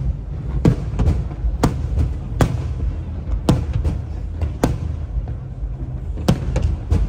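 Aerial fireworks shells bursting overhead in an irregular series of sharp bangs, about a dozen, with a short lull near the end, over a steady low rumble.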